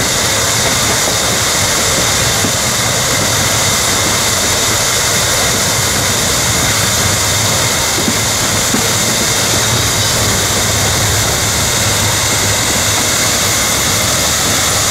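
Freight train of Herzog gondola cars rolling past close by: steady, loud noise of steel wheels running on the rails, with no change in pace.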